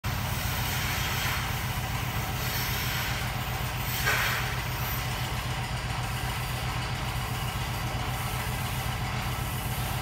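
Milking machine running under vacuum: a steady low mechanical hum with a hiss of air as the teat cups of a NuPulse milker claw are put on a cow. A brief louder hiss comes about four seconds in.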